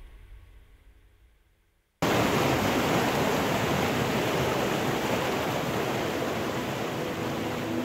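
Music fades out, then about two seconds in a steady rush of water starts abruptly: water gushing from a dam's outlet into its spillway channel.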